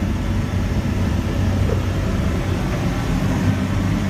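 A steady low mechanical hum with a constant noise underneath, unchanging throughout.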